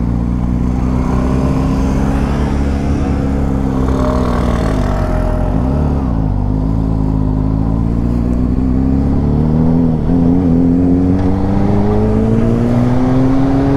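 Motorcycle engine running on the move, its pitch dipping briefly about halfway through and then climbing steadily toward the end as it accelerates, with wind rush on the microphone.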